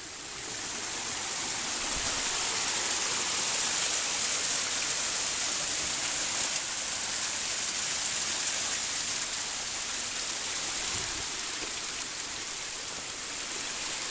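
Spring water trickling and splashing down over mossy rocks from a cave, a steady rushing hiss that grows louder over the first couple of seconds and eases a little near the end.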